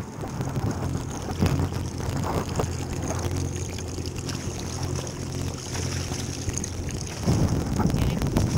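Boat's outboard motor idling steadily, with wind on the microphone and a few light knocks. Rougher noise rises near the end.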